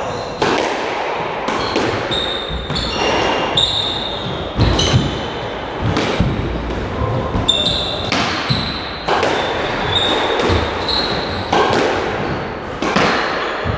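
Squash rally: the ball cracking off rackets and walls roughly once a second, each hit echoing in the enclosed court, mixed with short high squeaks of court shoes on the wooden floor.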